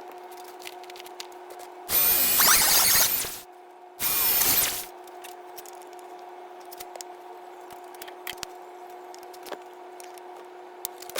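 Dremel rotary tool with a cutoff wheel grinding a slot into a rounded-off steel bolt head, in two loud bursts: one of about a second and a half, then a shorter one a moment later. A steady hum runs underneath.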